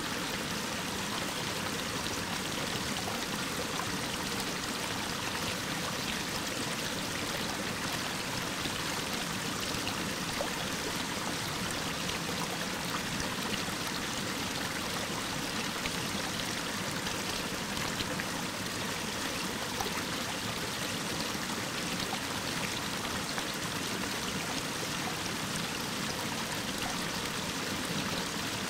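Mountain stream's waterfall pouring over rock: a steady, even rush of falling water.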